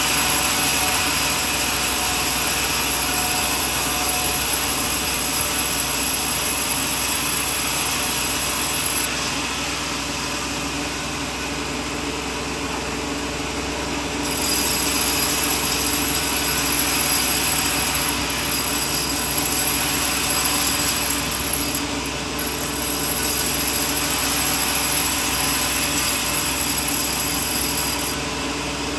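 A sawmill blade cutting coconut wood, with a steady high hiss over the running machine. The cutting sound drops away for about five seconds in the middle, leaving the motor running, then resumes and stops again near the end.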